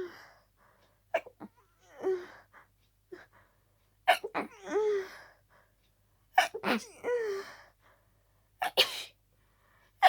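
A person sneezing harshly in a rapid fit, about four sneezes two to three seconds apart, from a head cold.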